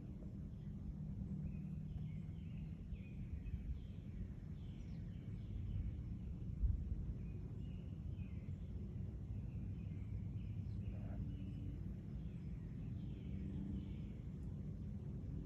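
Outdoor background: a steady low rumble with small birds chirping repeatedly throughout, and a single soft bump about seven seconds in.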